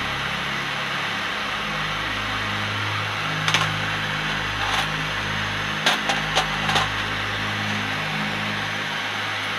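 Propane torch flame hissing steadily, with a few sharp metallic clinks from about three and a half to seven seconds in as brass rifle cases drop into and are picked from a metal tray.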